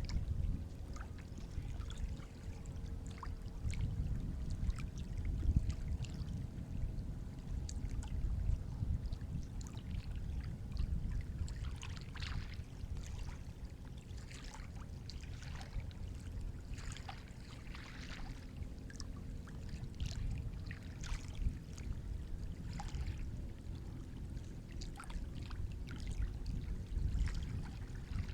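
Sea water lapping and splashing at close range: a steady low rumble of moving water with many small, irregular splashes and drips over it.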